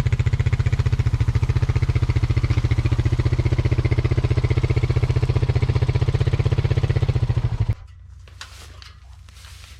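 An engine running steadily with a fast, even pulse, cutting off abruptly near the end; after that, only faint rustling.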